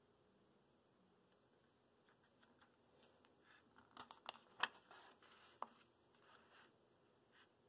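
Page of a thin picture book being turned by hand: quiet paper rustling with a few sharp crinkles and flaps, the loudest a little past the middle.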